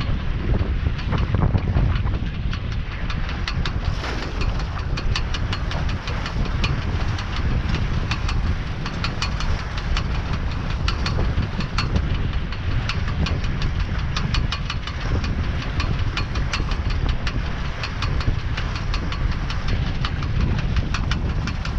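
Wind buffeting the microphone as a steady low rumble, with a rapid, uneven ticking or knocking running over it.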